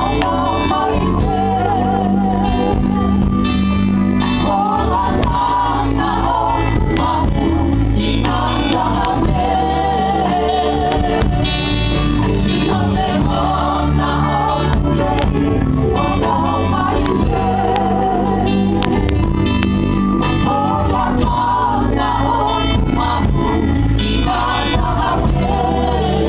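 A vocal group sings a gospel song with guitar and band accompaniment.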